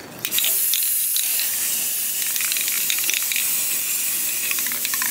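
Aerosol spray-paint can spraying in one long, steady hiss that starts a fraction of a second in.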